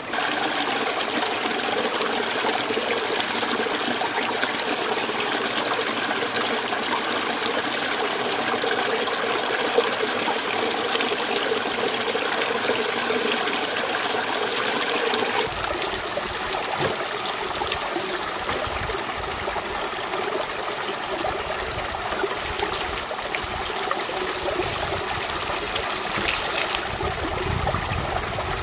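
Running water trickling and flowing steadily, changing character about halfway through with more low rumble.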